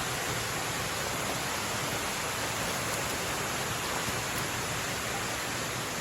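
Steady rush of a waterfall, an even wash of falling water.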